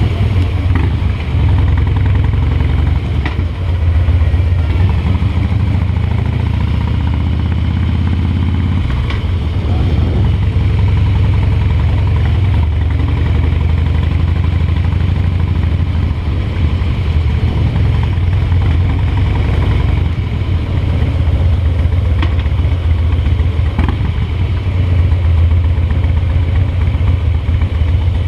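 Harley-Davidson V-twin engine running as the motorcycle rides at low speed. The engine note rises over several seconds and falls back about nine seconds in.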